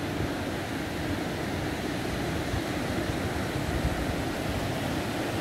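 Surf breaking on a sandy shore, a steady rushing noise, with wind buffeting the microphone in an irregular low rumble.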